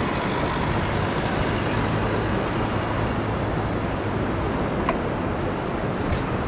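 Steady rush of wind and road noise picked up by an action camera mounted on a moving bicycle, with motor traffic running alongside. A single sharp click about five seconds in.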